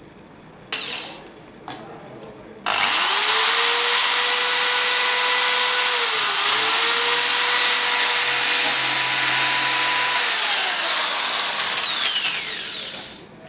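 Electric drill starts up a little under three seconds in and runs with a steady high whine while its bit grinds into a smartphone's glass screen and metal body, dipping briefly as the bit bites. Near the end the motor winds down with a falling whine and stops.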